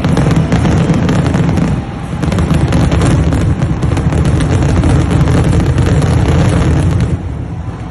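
Fireworks display in a dense barrage: many shells bursting in quick succession, booms and crackles running together over a deep rumble. It eases briefly about two seconds in and falls off sharply about seven seconds in.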